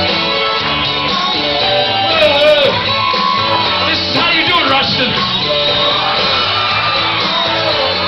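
Loud rock music with a man's voice singing and shouting along into a microphone.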